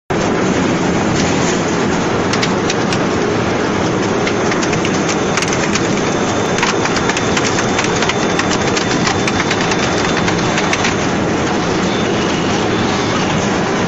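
Wood log cutting machine running with a loud, steady din, with many sharp cracks and clicks of branches being cut. The cracks thin out after about eleven seconds.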